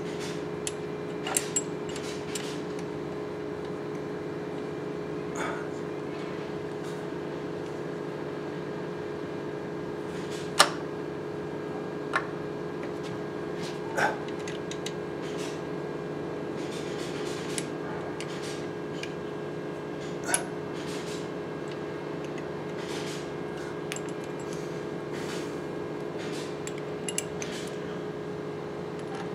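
A handful of sharp metallic clicks and taps, scattered irregularly, from screws and a hand tool against a new oil pump as it is fitted into an engine crankcase. A steady background hum runs underneath.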